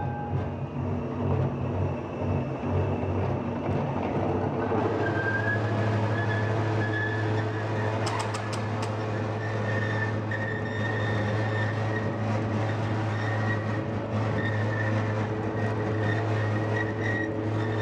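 Incremental profile forming machine running as its radial tool heads press a steel tube: a steady low hum with a higher whine joining about five seconds in, and a few sharp clicks around the middle.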